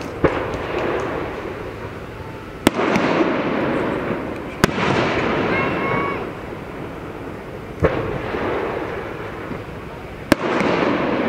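Aerial firework shells bursting one after another: five sharp bangs about two to three seconds apart, each followed by a lingering rumbling tail.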